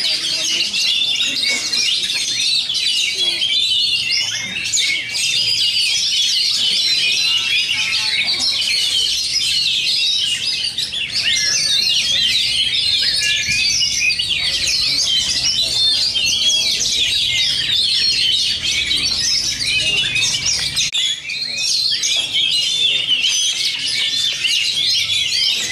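Oriental magpie-robin (kacer) singing an unbroken stream of fast, loud chirps and whistles, with other caged contest birds singing at the same time into a dense chorus.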